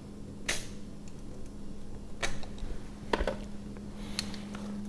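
A few light clicks and taps of hands working at a truck tire's valve stem, over a faint steady low hum.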